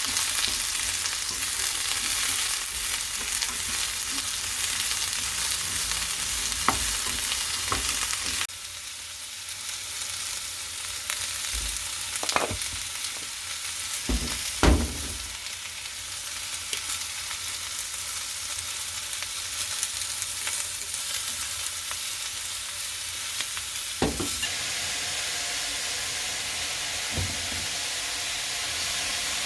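Food sizzling in a hot frying pan, with a few clicks and knocks of a cooking utensil against the pan. The sizzle drops suddenly to a quieter level about eight seconds in.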